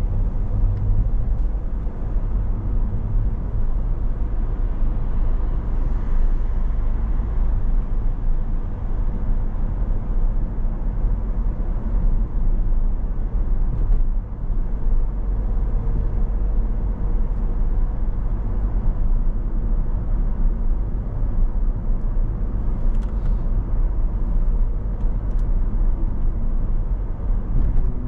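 A car driving along a road: a steady low rumble of road and engine noise.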